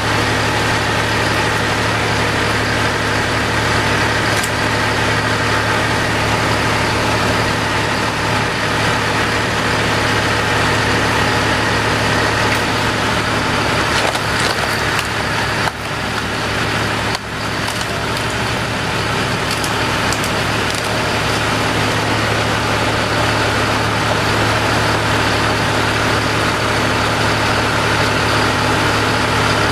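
Tractor engine running steadily as it powers a tractor-driven log splitter, with a few sharp cracks of wood splitting around the middle.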